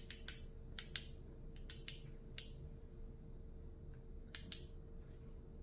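Two paintbrushes tapped together in a series of sharp, irregular clicks: a loaded brush knocked against another brush's handle to spatter white paint as stars. Most of the taps fall in the first two and a half seconds, with two more about four and a half seconds in.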